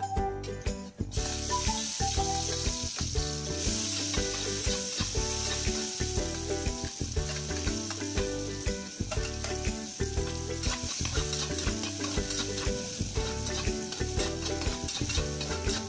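Chopped onion and garlic sizzling in hot oil in an aluminium wok while being stirred with a spatula; the sizzle starts about a second in, when the aromatics hit the pan, and runs steadily after.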